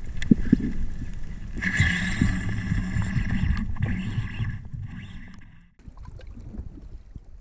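Underwater water noise: a low, continuous rumble of moving water, with a louder rushing hiss from about one and a half seconds in until about five and a half seconds in, then quieter.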